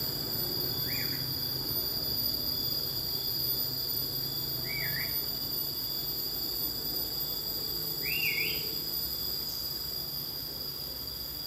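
Steady, high-pitched insect chorus made of several constant tones, with a bird giving three short warbling calls: about a second in, about five seconds in and about eight seconds in.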